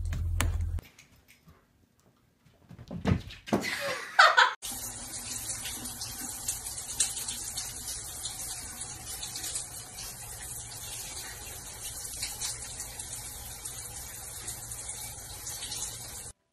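A few short, loud sounds about three to four seconds in, then a steady hiss like water running from a tap.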